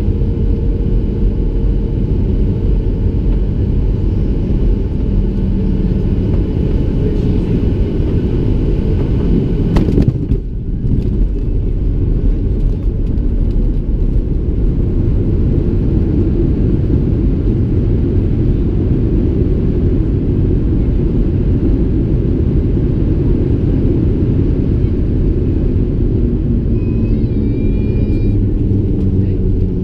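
Boeing 737-700 cabin noise heard over the wing: a steady loud rumble of its CFM56 engines and airflow. About ten seconds in there is a sharp thump as the main wheels touch down, and the rumble of the landing roll goes on after it.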